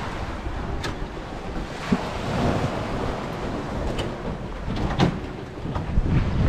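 Sea waves washing onto the rocks, with wind on the microphone, and a few sharp knocks of footsteps on wooden stair treads.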